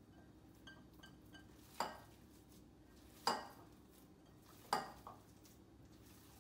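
Glass mixing bowl knocking against the countertop three times, about a second and a half apart, while raw ground turkey is mixed in it by hand, with a few light ringing clinks before the first knock.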